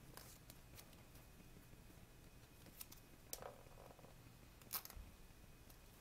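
Faint rustling and clicking of an Apple USB power adapter's packaging being handled and opened, with two sharper clicks a little past halfway and about a second and a half later.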